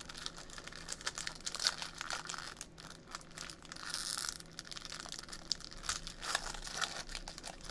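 Trading-card pack wrappers crinkling and being torn open by hand: a run of small, irregular crackles.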